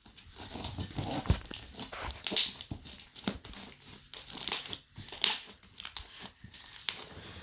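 Slime being squeezed and stretched by hand, giving irregular crackles and small pops.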